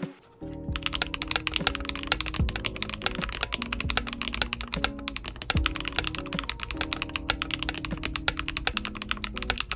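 Fast continuous typing on a Glitter65 custom mechanical keyboard with HMX Hyacinth V2U switches, a dense stream of keystroke clicks starting about a second in after a brief pause. Background guitar music plays underneath.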